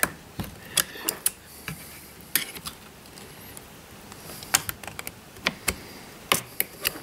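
Irregular small clicks and taps of metal parts and a screwdriver against plastic, as the metal kill switch and throttle linkage are worked into the plastic rear handle of a Stihl MS210 chainsaw.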